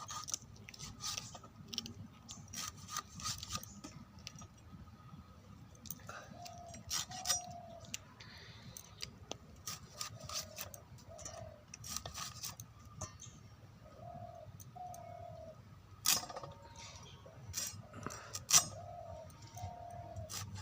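Knife clicks and scrapes as a fish is cut and cleaned, with a bird repeating a short two-note call every three to four seconds in the background.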